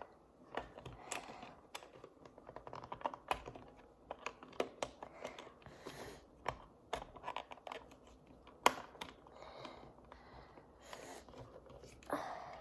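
Small plastic toy parts clicking and tapping as they are handled and fitted together: irregular light clicks, with one sharper click about two-thirds of the way through.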